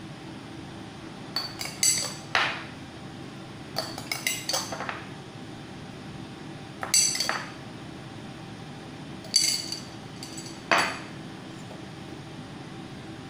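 Metal spoon clinking and scraping against a small glass jar while spooning out strawberry preserves, in four short groups of clinks.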